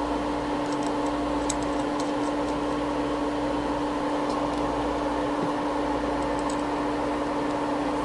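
Steady hum of running bench test equipment, with a clear low tone. A few faint light ticks, mostly in the first couple of seconds, come from small SMA connectors on a directional coupler being handled and threaded.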